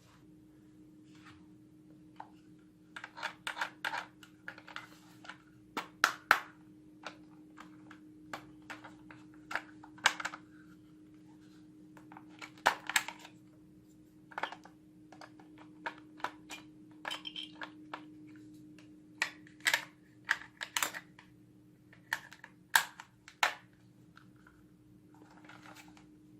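Irregular sharp plastic clicks and short rattles, some in quick clusters, from toy guns and their parts being handled, over a faint steady hum.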